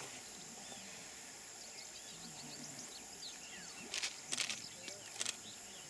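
A greater one-horned rhinoceros splashing water with its head as it swims in a river: a few short sharp splashes about four to five seconds in, over a steady background hiss.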